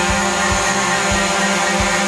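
DJI Mavic Pro quadcopter drone hovering, its four propellers giving a steady, loud buzzing whine.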